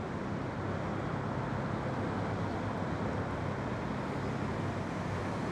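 Steady low rumble of vehicles and traffic, with a constant low hum underneath and no distinct events.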